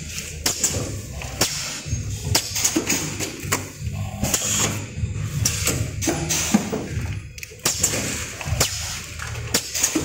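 Plastic test tube tray thermoforming machine running: a steady low hum with frequent, irregular clacks and knocks from its moving parts.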